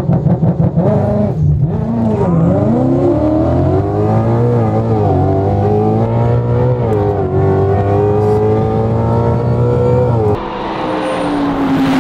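Sports car engine heard from inside the cabin, launching and accelerating hard down a drag strip. The revs waver for the first couple of seconds, then climb in pitch through several upshifts. The engine note drops away near the end, as the throttle is lifted.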